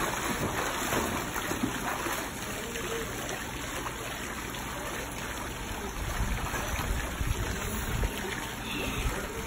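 Swimming-pool water sloshing and lapping as a child swims through it, a steady watery splashing. Low rumbling joins in from about six seconds in.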